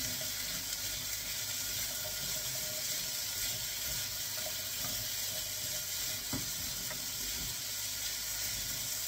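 Diced root vegetables sizzling in a stainless steel sauté pan as they are stirred with a spatula: a steady hiss, with one light knock about six seconds in.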